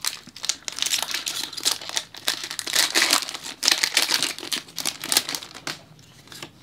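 Foil wrapper of a Pokémon TCG booster pack crinkling and tearing as it is handled and opened by hand: a dense, busy crackle that dies down about a second before the end.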